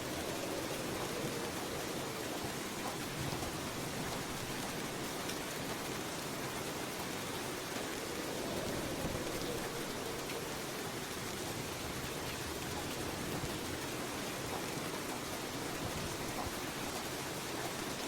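Steady rainfall: an even hiss of rain on surfaces with no separate drops standing out, holding level throughout.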